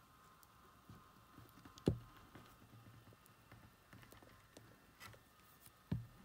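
Faint handling noises: fingers and steel tweezers tapping and clicking on a small remote-control circuit board and work mat, with two dull thumps, one about two seconds in and one near the end.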